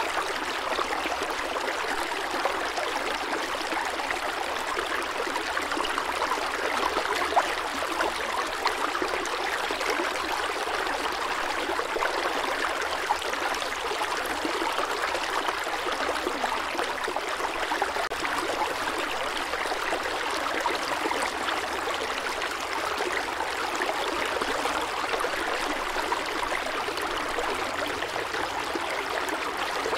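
Steady rushing water, an even hiss with no surges or breaks, laid on as a relaxing nature-sound track.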